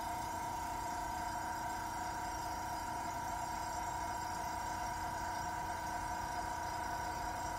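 Small airbrush compressor running steadily: an even low hum with a constant higher whine on top, really quiet.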